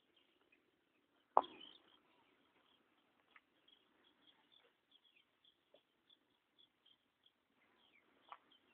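Faint, short, high animal chirps repeating throughout, with a sharp knock about a second and a half in and a softer one near the end.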